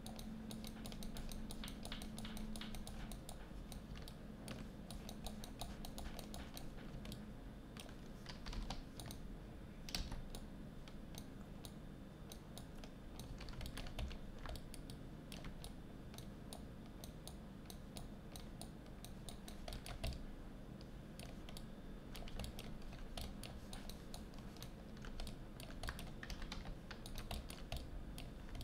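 Computer keyboard keys tapped irregularly, a scattered clatter of short clicks that runs on and off.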